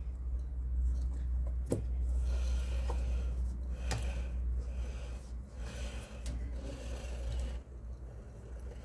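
Washing machine drive pulley being fitted onto its shaft by hand: a couple of sharp clicks and several short scraping, rubbing sounds over a steady low hum.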